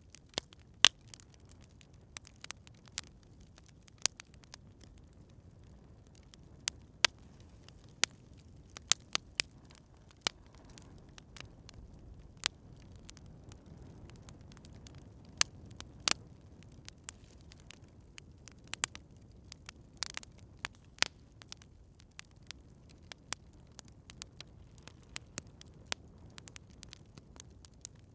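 Wood campfire crackling: irregular sharp pops and snaps, a few of them much louder than the rest, over a soft steady low rumble of the burning fire.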